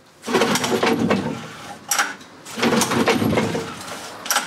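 1986 Spirit 20 hp outboard being pull-started: two long pulls on the recoil starter rope, the engine cranking over without catching. Each pull ends in a short sharp snap as the rope winds back in.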